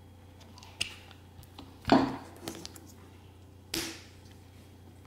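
Steel hex sockets and a screwdriver blade being handled, giving a few sharp clicks and knocks. The loudest knock is about two seconds in, and another comes just before four seconds.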